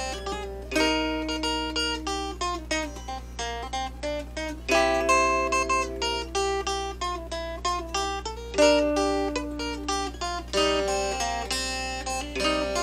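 Appalachian mountain dulcimer played solo: a plucked and strummed melody over steady drone strings, with several notes a second.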